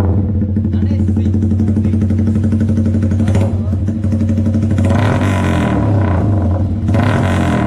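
Motorcycle engine running at a steady idle. In the second half its pitch dips and rises slightly.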